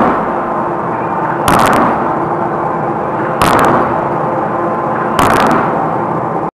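5-ton hydraulic open-die forging hammer striking a red-hot steel billet: three heavy blows about two seconds apart, each with a brief ring. Under them runs the steady noise of the running machine.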